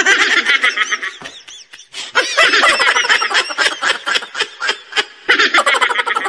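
High-pitched snickering laughter in quick pulses, in two stretches with a quieter lull between about one and two seconds in.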